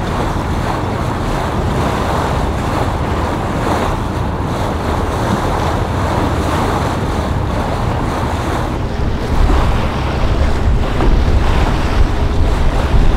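Wind buffeting the microphone over a steady wash of open water. Heavier gusts rumble in the last few seconds.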